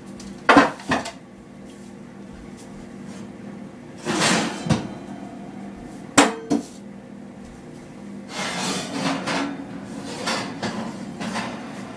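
Dishes and pans clattering as they are taken out of the oven and set down. There are a few sharp knocks near the start and again about six seconds in, with several short scrapes between.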